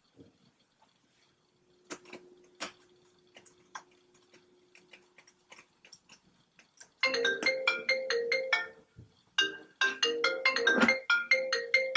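Mobile phone ringtone playing a short pitched melody, starting about seven seconds in and repeating after a brief pause. Before it, a few faint taps and clicks.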